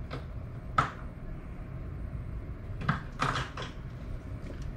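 Metal hand tools clinking as a 10 mm socket is picked out: a single sharp click about a second in, then a short clatter of several knocks about three seconds in.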